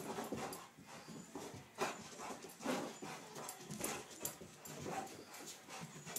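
A golden retriever–Labrador mix pouncing and scrambling across a carpeted floor: irregular paw thumps and scuffles.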